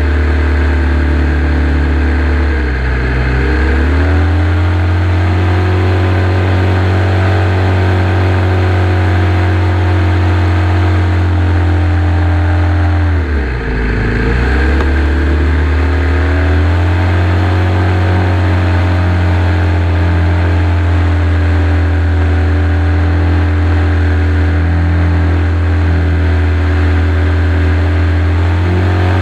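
Evolution 7-77 seven-cylinder radial gas engine of an RC Ag-Cat running at steady flying throttle, heard from onboard the model. Twice, about three seconds in and again about thirteen seconds in, the engine speed drops and climbs back.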